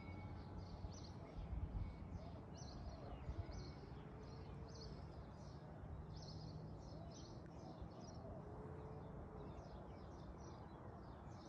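Small birds chirping, short high calls repeating about once or twice a second, faint over a low steady outdoor rumble.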